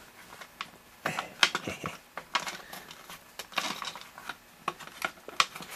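Hands prying at and handling the plastic case of a GoTek floppy drive emulator to open it: irregular plastic clicks, taps and short scrapes.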